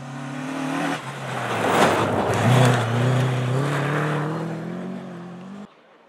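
Rally car approaching flat out, its engine note breaking for a gear change about a second in. It passes close with a loud rush of tyres and thrown snow, then accelerates hard away, the engine pitch climbing steadily. The sound cuts off suddenly near the end.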